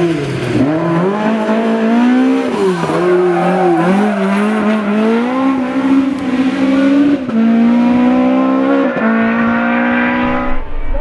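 Rally Toyota Corolla AE86 with a two-litre engine under hard acceleration, the engine note climbing and then dropping sharply several times as it shifts up or lifts between corners.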